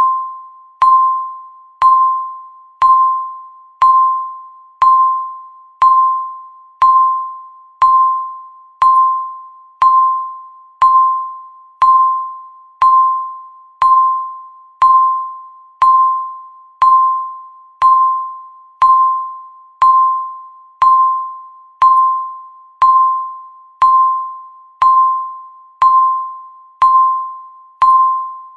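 Countdown timer's electronic tick sound: a short, single-pitched ping struck once every second, each ringing down before the next.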